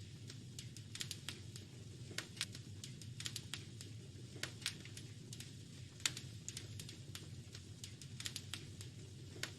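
Wood fire crackling in a fireplace: irregular sharp pops and snaps, a few louder ones, one about six seconds in, over a steady low rumble of the burning fire.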